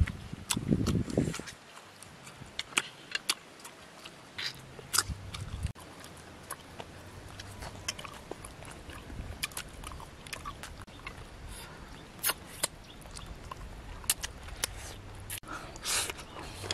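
Close-up chewing and lip-smacking of people eating with their mouths full: scattered sharp, wet clicks. A dull low thump sounds in the first second or so.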